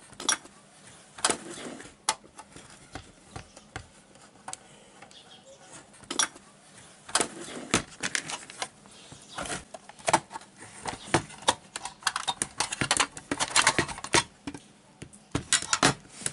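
A 12 V 20 A switching power supply being taken apart by hand: irregular clicks, scrapes and rattles of its screws and casing, busiest in the second half.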